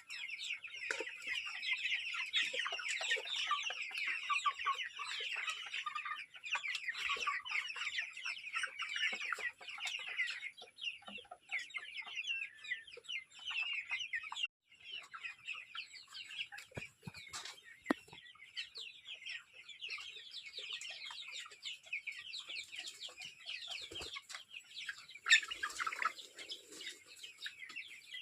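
Chicken chicks peeping continuously, many high chirps overlapping, busiest in the first ten seconds. A brief lower call comes near the end.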